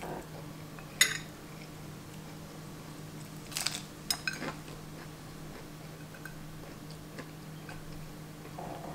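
Metal fork clinking against a ceramic plate: one sharp, ringing clink about a second in, then a short cluster of lighter clinks and taps a few seconds later, over a steady low hum.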